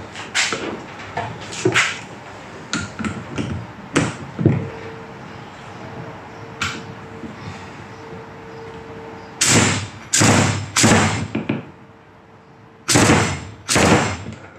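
Impact wrench fired in short bursts, three and then two, tightening the bolt at the bottom of a motorcycle fork leg. Clinks and knocks of the parts being handled come before the bursts.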